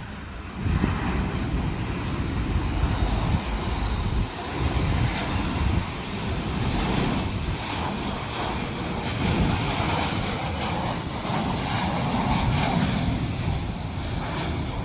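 Jeju Air Boeing 737-800's twin CFM56 jet engines on final approach, the airliner passing low overhead with its gear down. There is a steady, loud jet rumble and hiss that swells about a second in and holds.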